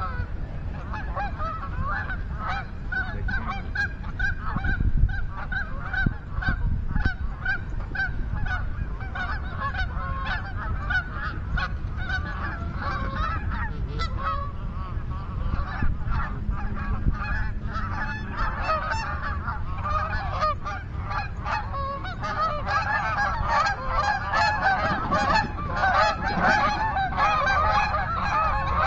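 Geese honking and clucking, many short calls overlapping at once, growing denser and louder near the end.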